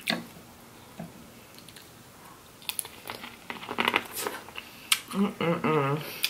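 Close-up eating sounds: a run of crunchy bites and chewing clicks starting a little under three seconds in, then a short hummed "mm" near the end.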